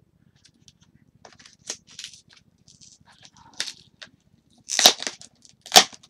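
Hands tearing open and crinkling the wrapping of a parcel, in short scattered rustles and cracks, with two loud sharp snaps about a second apart near the end.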